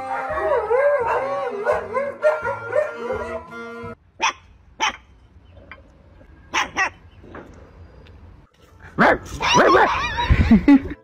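Music with a wavering, sliding voice over it, cut off suddenly about four seconds in. Then come a few short, sharp puppy yips, and near the end a louder run of yaps from puppies play-fighting.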